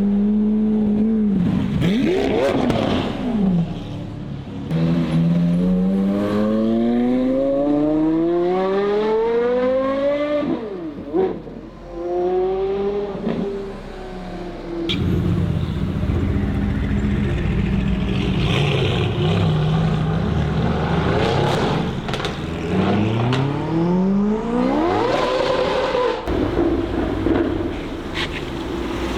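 Performance car engine accelerating hard: it rises steadily in pitch through several long pulls, each cut off by a sharp drop at a gear change, with a steadier stretch in the middle.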